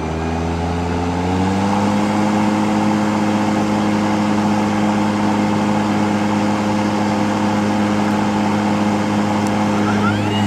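EGO Select Cut 56-volt cordless lawn mower's blade motor on turbo, its pitch rising over the first second or two as it spins up, then running at a steady whine.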